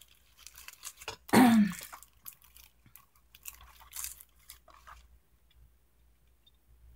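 A person clears her throat once, briefly, about a second in, followed by light crinkling and small clicks of a plastic glasses package being handled for a few seconds, which then die away.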